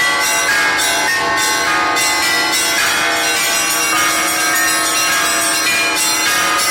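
Russian Orthodox Easter trezvon rung on a belfry's set of church bells: many bells struck in quick, overlapping strokes, several a second, ringing continuously over a steadier low bell tone.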